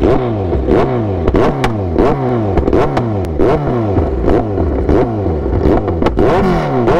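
Superbike engine revved in quick, repeated throttle blips, about two a second, each rev falling back at once. Sharp exhaust pops and backfire cracks come between the revs.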